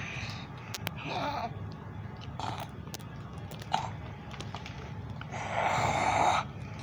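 A cat nuzzling and sniffing right against the phone's microphone: short breathy, rustling bursts and small clicks, with the loudest, about a second long, near the end.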